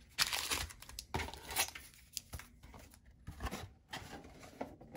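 Foil-wrapped trading card packs rustling and crinkling as they are lifted out of a cardboard hobby box and stacked, in a series of short irregular crinkles and light taps.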